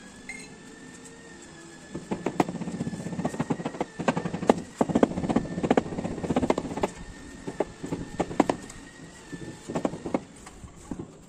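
Granite slab being tapped down into its mortar bed with the wooden handle of a hand tool: quick, irregular clusters of sharp knocks starting about two seconds in and thinning out near the end.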